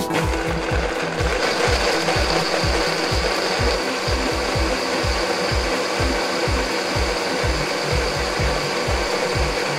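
KitchenAid blender running steadily, grinding nuts with milk into a paste; a steady high whine sets in about a second in.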